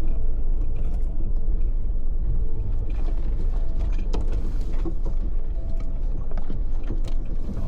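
Suzuki Jimny JB74 crawling over a rough, slippery off-road trail, heard from inside the cabin. A steady low engine and drivetrain rumble runs under frequent irregular clicks, creaks and rattles from the body and suspension.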